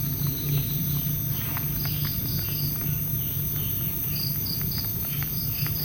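Night insects chirping in short pulsed groups of two or three high notes, over a steady low hum, with scattered faint clicks.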